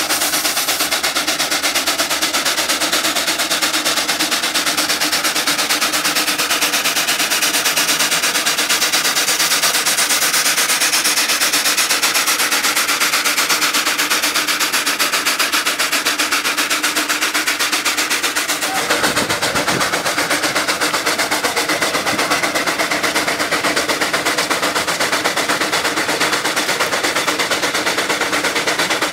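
Minneapolis steam traction engine working under load pulling a gang plow, its exhaust beating so fast and evenly that it runs together into a steady drum-roll-like chatter over a hiss of steam. A low rumble comes in about two-thirds of the way through.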